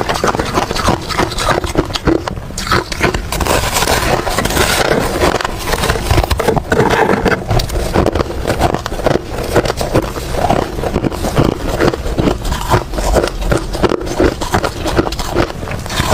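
Ice being crunched and chewed, many sharp cracking crunches in quick, continuous succession.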